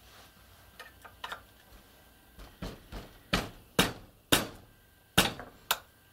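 A series of sharp taps on a small pin punch, driving the retaining pin out of the side of a Stirling 14P .22 rifle bolt. Two light taps are followed, from about two and a half seconds in, by about seven harder taps at uneven intervals.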